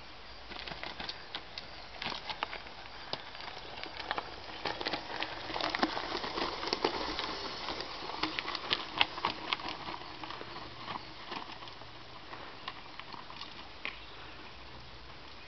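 Mountain bike rolling down a rocky trail: tyres crunching over loose stones and the bike rattling in irregular clicks, louder as it passes close about halfway through, then fading as it rides away.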